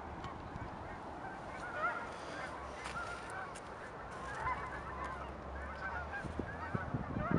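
A flock of Canada geese honking, many short calls overlapping throughout, over a low rumble with a few low thumps near the end.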